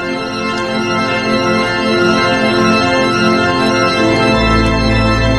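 Organ music played back from a recording: a sustained chord of many held notes, with a deep bass note coming in about four seconds in.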